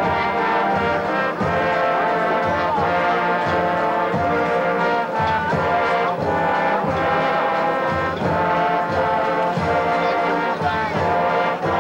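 A school marching band playing a brass-heavy piece with a featured trombone solo, over a steady low beat from the bass section.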